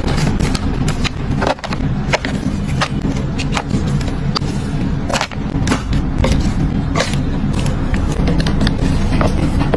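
Foil sachets of drink syrup and jelly crinkling and tapping as they are set into a clear plastic storage bin: many short, sharp crackles and clicks at an uneven pace, over a steady low rumble.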